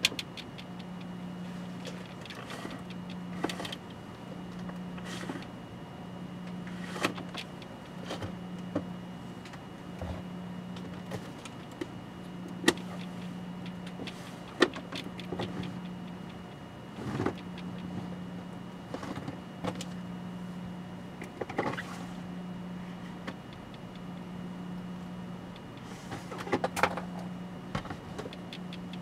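Scattered sharp clicks and short rustles of small parts being handled on a workbench, over a steady low hum that swells and fades in slow, even pulses.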